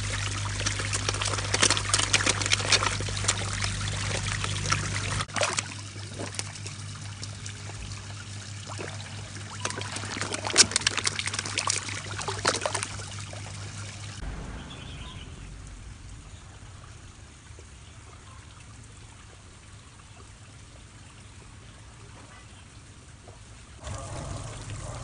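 Koi splashing and slurping at the water surface as they crowd around and suck at a hand, in two bouts of choppy splashing with quieter trickling water between and after. A steady low hum runs under the first half.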